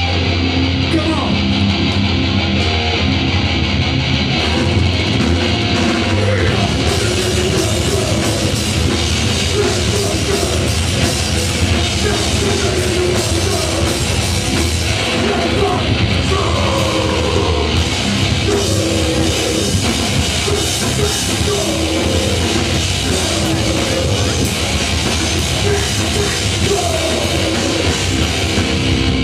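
Loud, steady live heavy rock band, recorded from inside the crowd: distorted electric guitars and a drum kit, with a vocalist's voice coming through in places.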